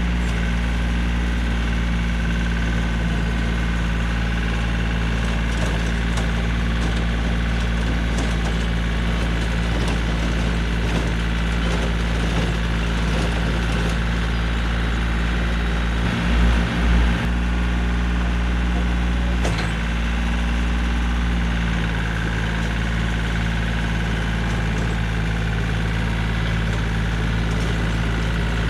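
Yanmar compact tractor's diesel engine running steadily while driving a PTO rototiller through garden soil. Two brief low thumps come about sixteen seconds in, and the engine note shifts a little around twenty seconds.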